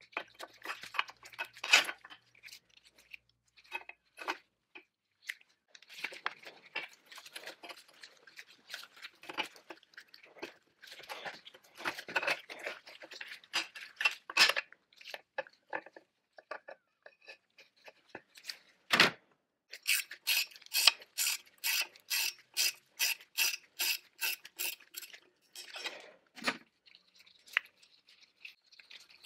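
Metal parts of a Barco BR-5 rammer being handled and worked loose by hand: scattered clinks, taps and scrapes, with one louder knock a little past the middle. This is followed by a run of evenly spaced sharp clicks, about three a second, lasting several seconds.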